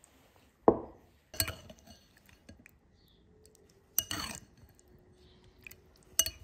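A dull knock on the table, then three sharp, ringing clinks of a metal spoon against a ceramic soup bowl.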